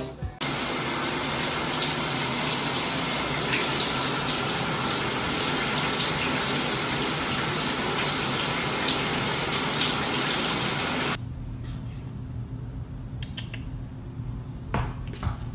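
Shower water running steadily, a loud even hiss of spray in a tiled shower stall; it stops abruptly about eleven seconds in.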